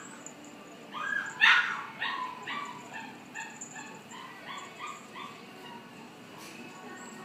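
Shiba Inu giving a run of about a dozen short, high yips, roughly two a second. The loudest comes near the start, and the rest fade.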